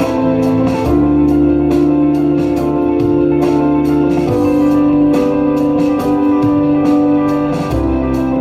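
Instrumental passage of a pop ballad: sustained keyboard chords over a light, steady beat, changing chord a few times, with no singing.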